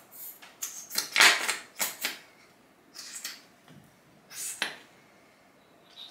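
Plastic squeeze bottle of Olaplex leave-in hair cream squeezed hard into a palm: a series of about six short squirting bursts of air and cream, the loudest about a second in. The cream has gone stiff inside a still-full bottle and is being forced out through the nozzle.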